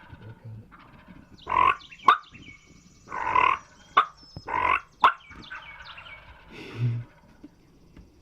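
Birds calling in the field between turkey gobbles: four harsh, raspy calls spread over several seconds, with a few sharp clicks and faint songbird chirps behind them.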